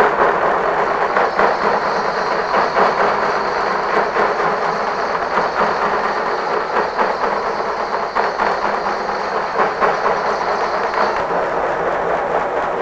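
Many hand-held frame drums beaten together in a fast, dense, continuous rhythm.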